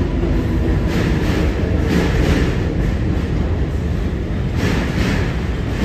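R188 7 subway train pulling away from the station with a steady rumble of steel wheels on rail. Short clicks come in pairs as the wheel trucks cross rail joints.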